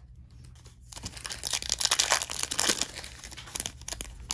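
Foil wrapper of a Panini Prizm trading-card pack being pulled open, crinkling, starting about a second in.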